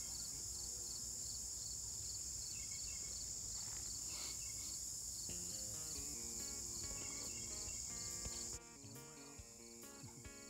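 Steady, high-pitched chorus of field insects (crickets and katydids) drones on, with soft background music coming in about halfway through. The insect sound cuts off abruptly near the end, leaving the music.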